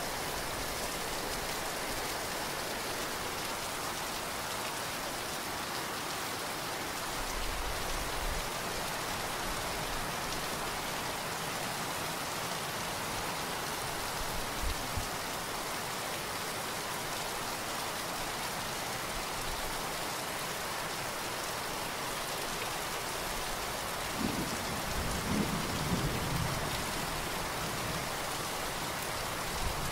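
Heavy downpour: steady rain hitting the ground and a roof, with water pouring off the roof edge. A few low rumbles of thunder come through, a short one about a quarter of the way in and a longer, stronger one near the end.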